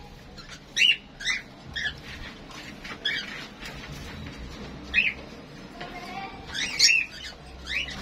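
Caged birds giving short, sharp chirps, about a dozen scattered calls, with a louder cluster near the seven-second mark.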